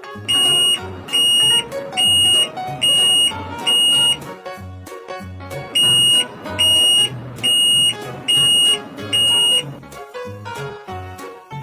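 Loud electronic alarm-style beeping, two runs of five high beeps about one a second with a short pause between them, over background music.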